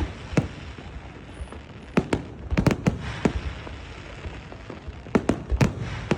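Fireworks going off in irregular bursts of sharp bangs, bunched about two to three seconds in and again near the end, with a crackle between the bursts.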